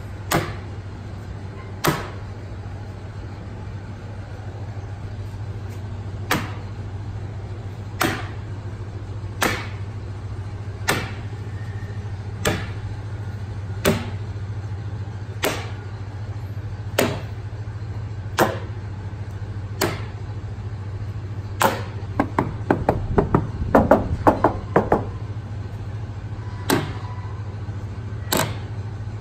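A small bar magnet clicking onto the steel body panels of a 1957 Chevrolet Bel Air wagon in a magnet test of the bodywork for filler: one sharp click about every one and a half seconds, with a quick run of taps about three quarters of the way through. A steady low hum runs underneath.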